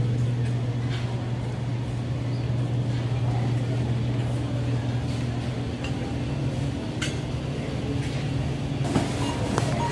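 Steady low hum of a supermarket's refrigeration and ventilation beside the frozen-food cases, with a few faint clicks and knocks.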